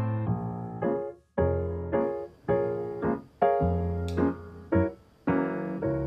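Background piano music: chords struck one after another, each ringing out and fading, with brief dips in between.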